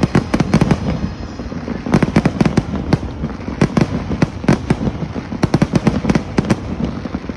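Fireworks going off: a rapid crackle of sharp bangs in clusters, one after another, over a continuous rumble.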